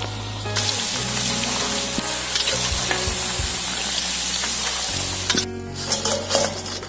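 Tapioca chips deep-frying in hot oil in an iron kadai, a loud steady sizzle that swells about half a second in. Near the end the sizzle drops away as the chips are lifted out with a perforated skimmer, leaving a few light clinks and rustles.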